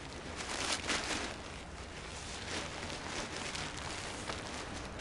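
Nylon canopy of a rolled-up Naish Torch kite rustling as it is pushed and squeezed down into its bag, in irregular surges.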